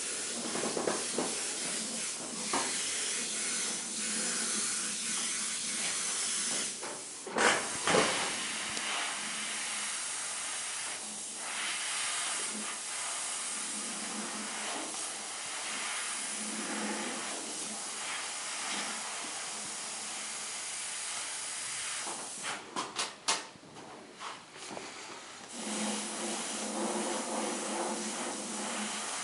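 Gravity-feed airbrush spraying, a steady hiss of compressed air and paint, broken off near the end by a few short spurts. Two louder knocks about seven seconds in.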